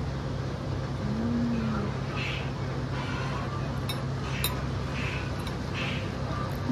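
Steady low hum of street ambience, with two light clinks about four seconds in as metal chopsticks touch the bowl.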